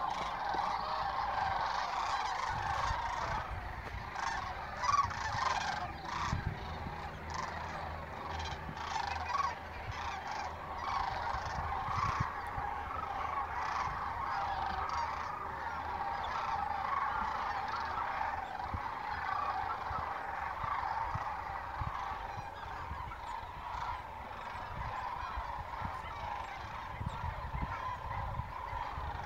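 A large flock of geese calling continuously, a dense chorus of many overlapping honks.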